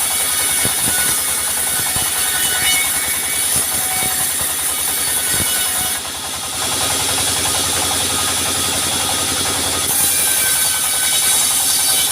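Sawmill machinery running: a steady engine drone with saw and wood-cutting noise and occasional knocks. The sound briefly dips and changes character about halfway through.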